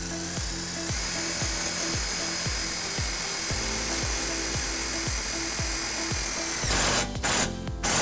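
Power drill driving self-tapping screws to mount a trailer wiring bracket: a steady motor whine that cuts off about three-quarters of the way through, followed by a few short bursts.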